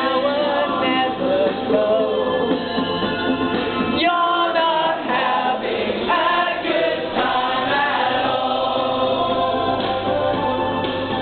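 Pop song with singing: a single lead voice at first, then a group of voices singing together from about four seconds in.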